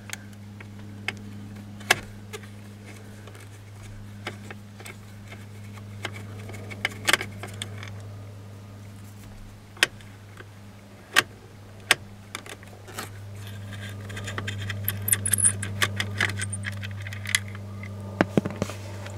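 Irregular small metallic clicks and ticks of a screwdriver working the screws and plastic trim of a steering-wheel cruise-control switch panel, over a low steady hum. The clicks come thicker near the end, as the loosened switch panel is handled.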